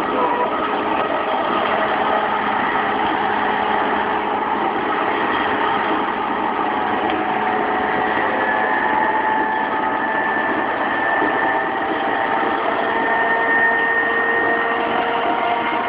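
Interior running sound of a JR East E233-3000 series electric train's motor car moving at speed: steady wheel and rail rumble with the faint whine of the traction motors and Hitachi IGBT VVVF inverter, one high tone edging slightly upward in the second half.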